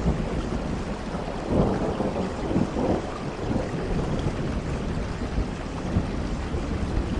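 Steady rain with thunder rumbling low, swelling about a second and a half in and easing off after about three seconds.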